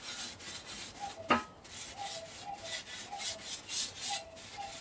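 A paper towel wiped briskly back and forth across the metal grates of a hot Weber gas grill, in quick rubbing strokes about three or four a second. There is one light knock a little over a second in.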